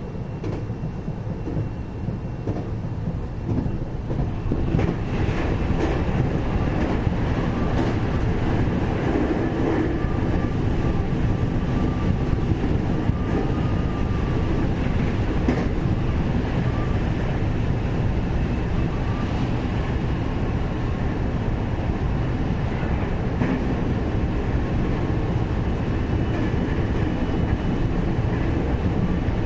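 Interior running sound of a 521-series electric multiple unit, heard inside motor car KuMoHa 521-30: a steady rumble of wheels on rail and running gear. It gets louder about four to five seconds in, then holds steady, with a faint, wavering whine above the rumble.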